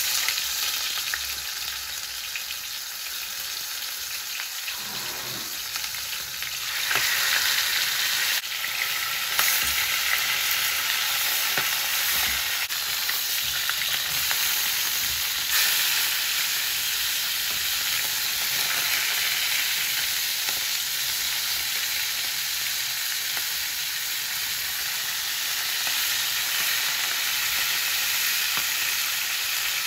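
Marinated chicken legs sizzling as they fry in hot oil in an aluminium pan: a steady, dense sizzle that grows louder about seven seconds in.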